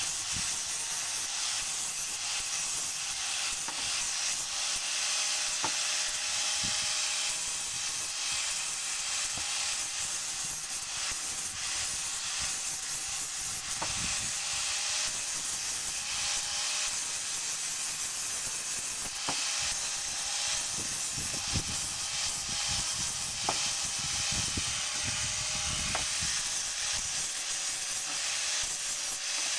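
Angle grinder running with an abrasive disc pressed against steel chain links, grinding them: a steady hissing rasp over the motor's whine, with a few sharp clicks now and then.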